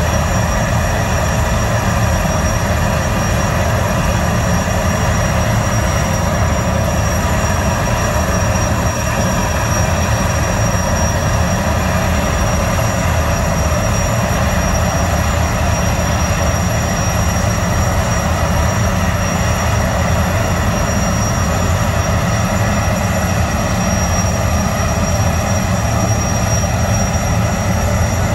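The Boeing 929 Jetfoil's twin Allison 501-KF gas turbines running steadily: a loud, unchanging rumble with a thin, high whine over it.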